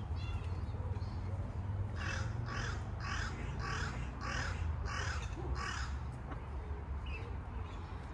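A crow cawing: a run of seven caws, about two a second, starting about two seconds in.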